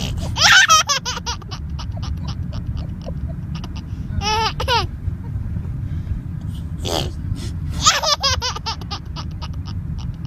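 Baby giggling in three short bouts of quick, breathy pulses, near the start, midway and near the end. A steady low rumble runs underneath, the noise of the car cabin she is sitting in.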